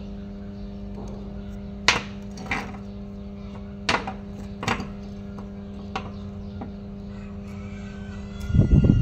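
Small steel pieces of a welding electrode holder clinking against each other and the concrete floor as they are handled and set down: about five sharp clinks over a steady low hum. A loud low rumbling noise starts near the end.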